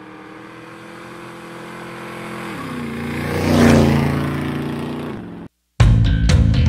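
Engine of a motor vehicle building up and passing by, its pitch dropping partway through and loudest about three and a half seconds in, then fading and cutting off abruptly. After a moment of silence, music with drums and guitar starts near the end.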